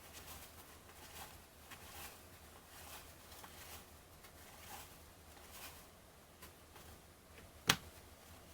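Trading cards being flipped through one at a time by hand, a soft slide of card stock roughly every second, with one sharper click near the end.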